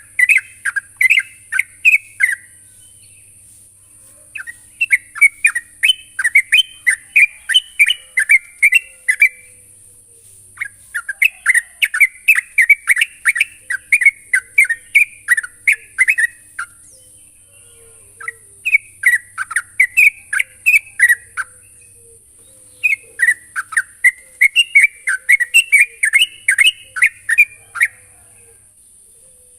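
Yellow-vented bulbul (trucukan) singing its rapid bubbling, chattering song in about five bouts of a few seconds each, with short pauses between. A steady high hiss runs underneath.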